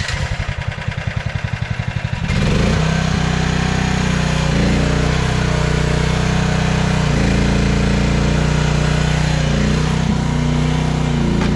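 Chinese mini excavator's engine turning over on the starter with rapid, even pulses for about two seconds, then catching and running steadily.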